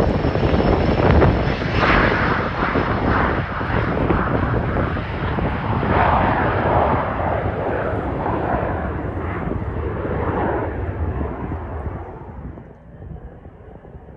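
Jet airliner engines passing close by: a loud, rushing rumble that fades over the last couple of seconds as the higher part of the sound drops away.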